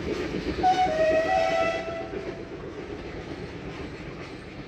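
Steam train's coaches rumbling and clattering over a stone viaduct, the sound fading as they move away. About a second in, the train's whistle sounds for about a second and a half.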